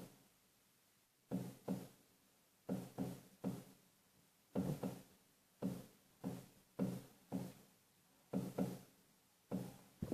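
A series of short, sharp knocks or bangs, irregular and in small clusters of two or three, coming faster near the end.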